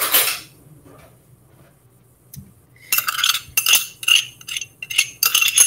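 A metal spoon tapping and scraping against a small glass ramekin, a quick run of ringing clinks that starts about three seconds in, as minced garlic is knocked out into a bowl. A short rustling noise comes right at the start.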